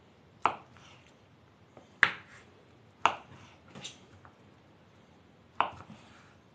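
Kitchen knives cutting boiled potatoes and knocking on wooden cutting boards: about five sharp, irregularly spaced knocks.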